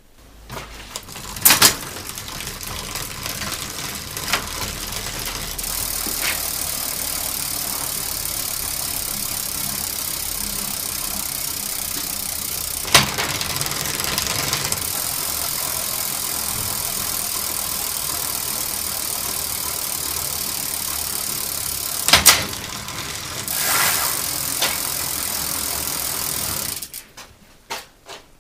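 Bicycle drivetrain turning in a repair stand: a steady whirr of chain running over the rear derailleur and cassette, with three sharp clacks spread through it, before it stops suddenly near the end.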